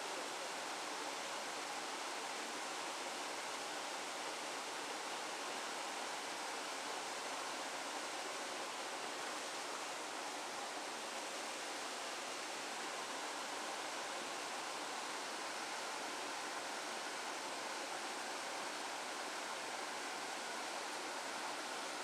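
Stream water rushing steadily, an even hiss of flowing water with no breaks.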